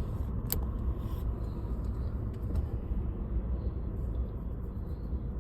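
A car driving, a steady low rumble of engine and road noise, with one short sharp click about half a second in.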